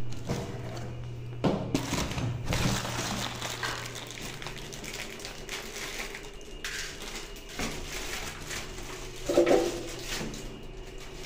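Plastic wrapping crinkling and rustling as hands handle and unwrap toilet parts, with scattered light knocks and a louder burst of handling near the end.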